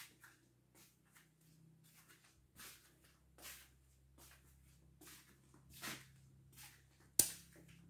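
Soft, irregular footsteps and rustles of a handheld phone being carried, over a faint steady hum, with one sharp click near the end as the loudest sound.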